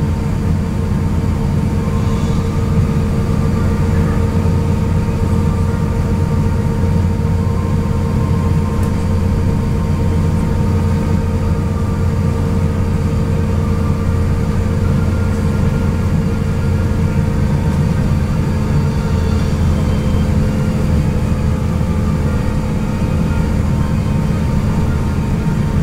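Cabin noise inside an Airbus A350-900 taxiing after landing: a steady low rumble with a faint even hum.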